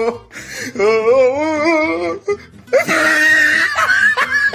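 A voice wailing with a wavering, quavering pitch, then, after a short pause, a louder shrill scream-like cry held to the end: a comic crying/screaming sound effect.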